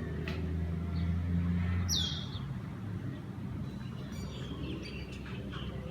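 Outdoor ambience: a few short bird chirps, one clear falling chirp about two seconds in, over a steady low hum of a motor vehicle or traffic that is strongest in the first two seconds.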